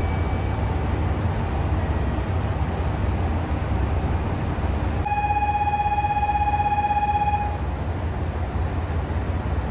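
JR Shikoku 2700 series diesel multiple unit idling, a steady low engine rumble. About five seconds in, a single steady pitched signal tone sounds for about two and a half seconds and cuts off sharply.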